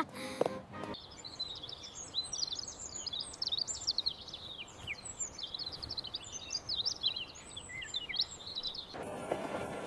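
Many small birds chirping and twittering, a dense stream of quick high calls over a faint background hiss. Near the end it cuts abruptly to a busier, denser background noise with faint thuds.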